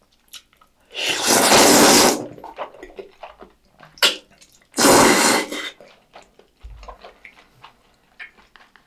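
Two long, loud slurps of jjajangmyeon noodles in black bean sauce, the first about a second in and the second about five seconds in, followed by soft chewing and mouth clicks.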